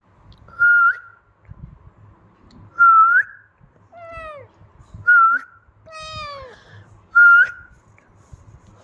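A tabby kitten meowing twice, high calls that fall in pitch, between four short, loud whistled notes that hold one pitch and flick upward at the end.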